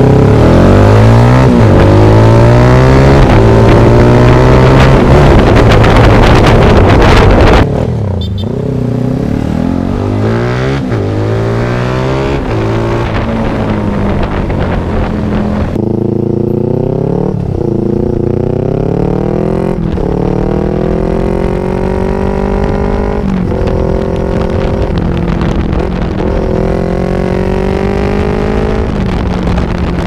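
Motorcycle engine accelerating hard through the gears: its pitch climbs, drops at each upshift and climbs again. For the first several seconds it is heavily mixed with wind rush. Then the sound cuts to a quieter, clearer run of repeated rising revs and shifts.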